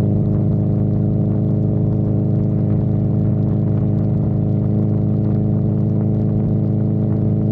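Honda CB1000R motorcycle's inline-four engine running at a steady, unchanging pitch.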